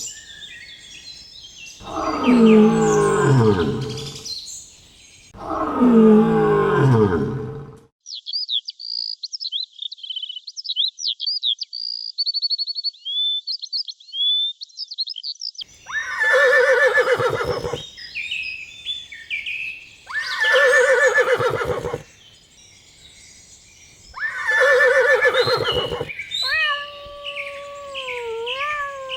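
Animal calls: three long, loud calls that slide down in pitch, then a stretch of high twittering birdsong. After that come three more loud calls, each a second or two long, and a chirping call that glides up and down near the end.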